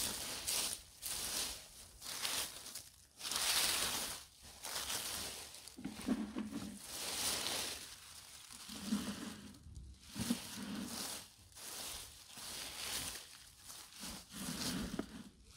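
Dry fallen leaves rustling and crunching in irregular bursts as they are scooped up by hand and pressed down into a plastic bucket, with a few dull low thumps.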